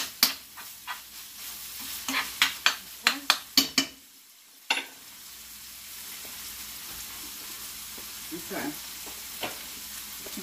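Ground taco meat frying in a skillet: a utensil clacks and scrapes against the pan as the meat is stirred for the first few seconds, then, after a brief lull, a steady sizzle.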